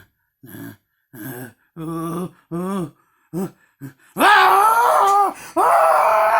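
A man's voice making wordless vocal noises: short grunts repeated about every two-thirds of a second and coming a little faster, then two loud, long, wavering wails about four seconds in.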